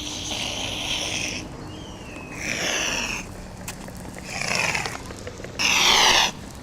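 A child making breathy whooshing mouth sound effects in four bursts, the last one the loudest.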